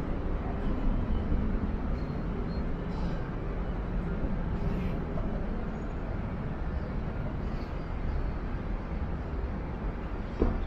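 City street ambience: a steady low rumble of traffic, with one short sharp sound near the end.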